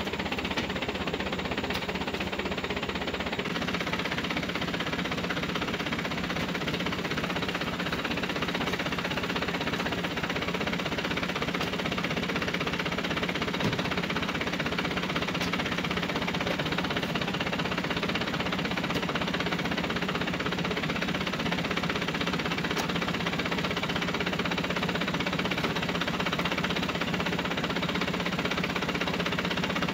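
Truck engine idling steadily, a constant low drone with fine rapid pulsing.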